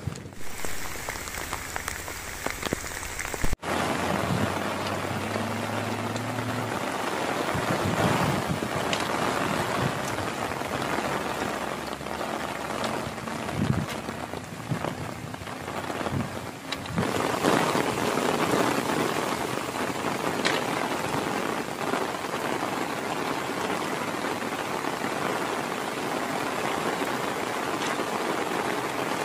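Steady rain falling, a dense even hiss of drops.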